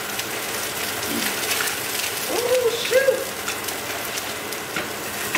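Food frying in hot oil in a pan on the stove: a steady sizzling hiss with scattered crackles and light clicks of a stirring utensil.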